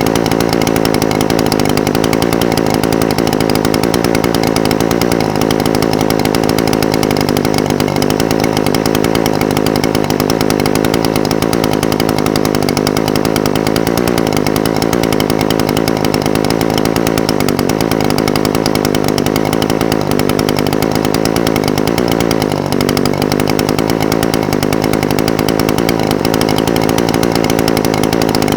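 Echo SRM-420TES brush cutter's two-stroke engine idling steadily, its note dipping briefly about 22 seconds in.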